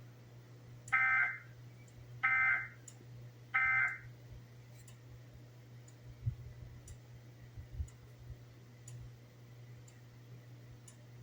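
Emergency Alert System End of Message tones: three short bursts of SAME digital data warble, evenly spaced about a second apart, the signal that closes an alert message. After them come only a low hum and faint ticks about once a second.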